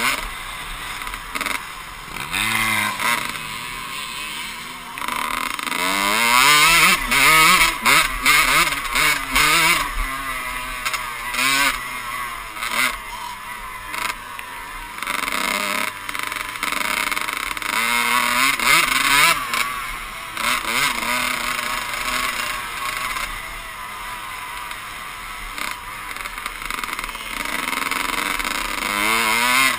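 Dirt bike engine revving up and falling back again and again as it is ridden hard, over steady wind rush on the rider-mounted camera.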